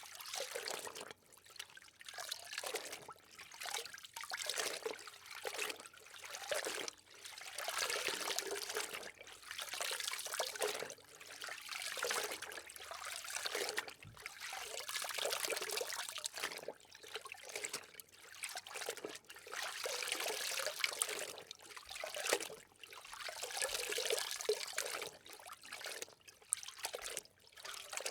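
Water trickling and sloshing as something is soaked in it, coming in uneven swells and dips every second or two.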